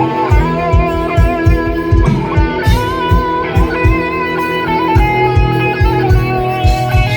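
A band playing an instrumental passage: an electric guitar plays a lead line of held, sliding notes over a steady drum beat.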